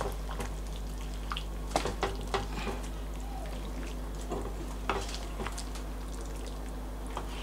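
Wooden spoon stirring a thick tomato-sauce pork stew in a frying pan, with scattered scrapes and knocks against the pan, over a steady low hum.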